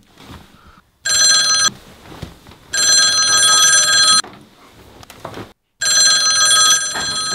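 A Nokia mobile phone's alarm tone rings in three bursts, the first short and the others about a second or more long. Each burst cuts off abruptly as the alarm is repeatedly snoozed.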